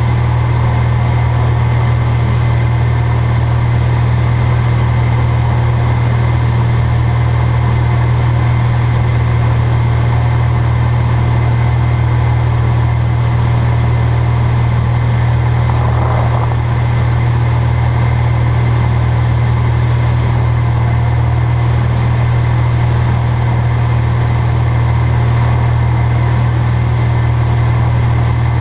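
Single-engine light aircraft's piston engine and propeller droning steadily, heard from inside the cockpit. The pitch and level hold steady throughout.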